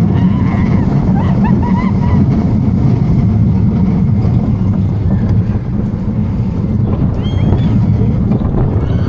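Roller coaster train running along its track, heard on board: a steady low rumble with wind on the microphone, and a few short high squeals in the first two seconds and again near the end.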